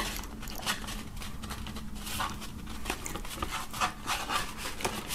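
A passport being pushed into a tight cardboard passport sleeve: stiff card and passport cover rubbing and scraping, with small irregular taps and clicks.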